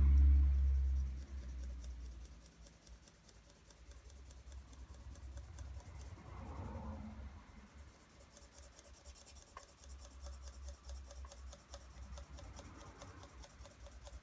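Pencil shading on drawing paper: fast, scratchy back-and-forth strokes of graphite, denser and quicker in the second half. A low rumble in the first second is the loudest part.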